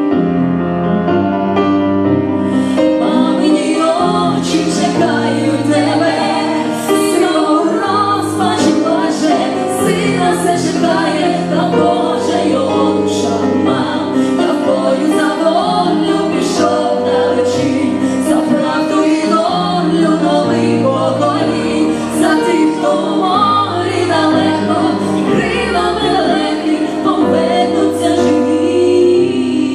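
Female vocal duet singing over an instrumental accompaniment, with a steady bass line and light percussion.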